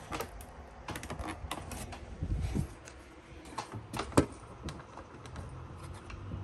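Scattered clicks and light knocks from handling XLR cable connectors and a metal rack unit, the sharpest about four seconds in.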